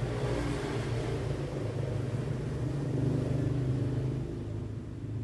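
A sleeping cat purring: a steady low rumble close to the microphone, swelling slightly about three seconds in.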